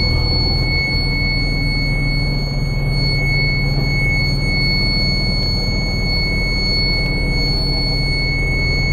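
A steady, high-pitched warning buzzer sounds without a break inside the Scania P94 260's cab, over the low, even running of the truck's diesel engine at idle.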